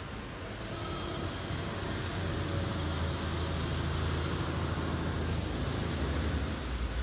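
Outdoor city ambience: a steady wash of noise with a low rumble that grows about two seconds in, and a few faint high chirps.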